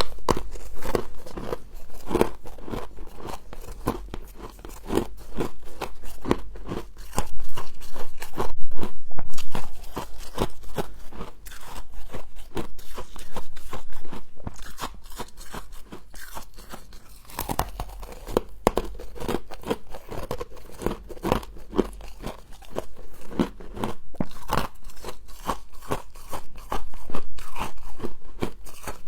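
Close-up crunching and chewing of frost in the mouth: a fast, dense run of crisp crunches, loudest around eight to ten seconds in and again near the end.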